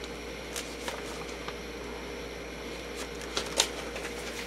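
Handling noise from a vinyl record in a black paper sleeve: light rustling of the sleeve and a few short clicks, the sharpest a little past halfway, over a faint steady hum.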